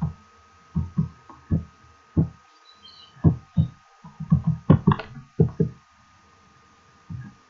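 Irregular soft thumps and clicks of a computer keyboard and mouse being worked, about fifteen strokes with a few sharper clicks midway. A faint steady high whine runs underneath.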